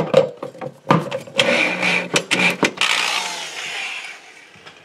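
DeWalt drill driving a screw through a steel shelf bracket into the wall. The motor runs in short bursts with several sharp clicks, then a longer whir that fades out.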